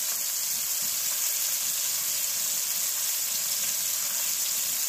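Steaks searing in hot oil in a cast iron skillet on a wood-fired cook stove: a steady, even sizzle.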